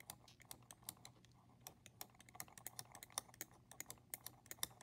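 A glass stirring rod ticking lightly and irregularly against the inside of a glass test tube, several quick clicks a second, while black copper oxide is stirred into hydrochloric acid.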